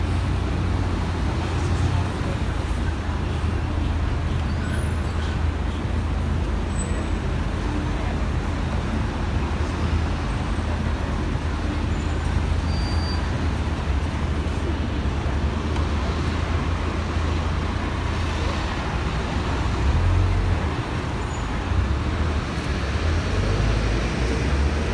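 Steady city street traffic noise, a low rumble of passing vehicles, swelling briefly as one passes louder about twenty seconds in.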